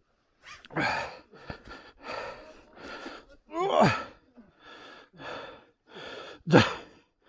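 A person breathing hard and fast, out of breath from exertion, with quick loud breaths more than once a second. Twice there is a strained groan falling in pitch.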